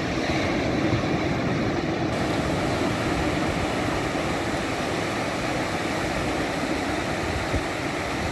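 Sea surf: small waves breaking and washing up the sand in foam, a steady rushing noise.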